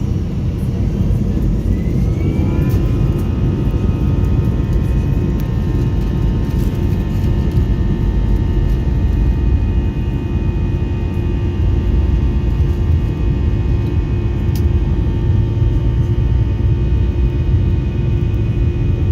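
Airbus A320's jet engines heard from inside the cabin, spooling up: a whine that rises about two seconds in and then holds as a steady tone over a loud, constant rumble.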